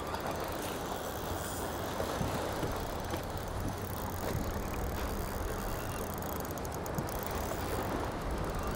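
Steady wind and water noise on an open boat on choppy water, with a constant low rush and no distinct strokes.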